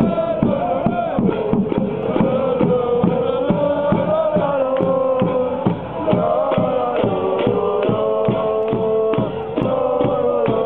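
A group of men singing in unison, chant-like, over a bass drum beaten steadily at about three beats a second.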